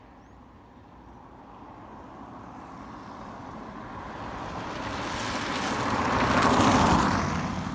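A car driving past on a rain-wet road, its tyre hiss and road noise growing steadily louder, peaking about six and a half seconds in, then fading.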